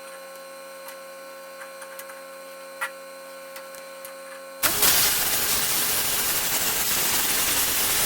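Steady electrical hum with a few faint ticks. About four and a half seconds in, a handheld plasma cutter's arc fires with a sudden loud, steady hiss as it cuts through 3/16-inch steel plate.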